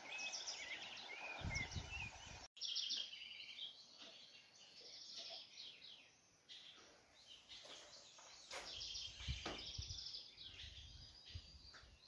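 Faint chorus of several birds chirping and trilling, with a few low thumps.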